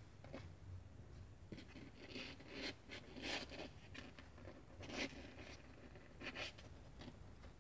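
Faint, irregular scratchy rustles and scrapes, several short ones over a few seconds, from young kittens stirring on a blanket in a cardboard box.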